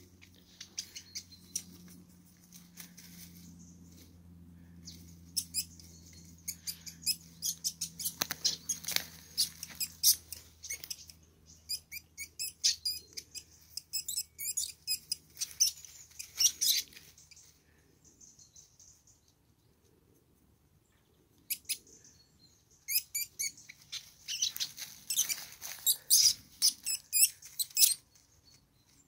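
Least weasels squealing and chirping at each other in rapid trains of short, high-pitched squeaks while fighting. The calls come in two spells, a long one over the first half and a second, louder one starting about two-thirds of the way through, with a quiet gap between.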